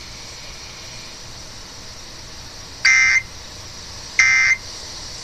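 Emergency Alert System end-of-message signal on FM radio: two short, buzzy bursts of SAME digital data tones, the first about three seconds in and the second about a second and a half later, over faint steady radio hiss. The bursts mark the end of the alert.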